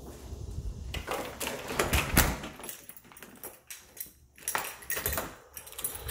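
A string of knocks, clicks and rustles from someone moving indoors while carrying and handling the filming phone, with the loudest knock about two seconds in.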